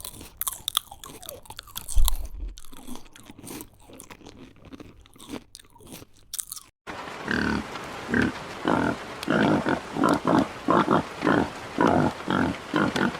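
An animal chewing and crunching food: crackly crunching, then after a sudden change about seven seconds in, a run of short chewing or grunting sounds repeating about twice a second.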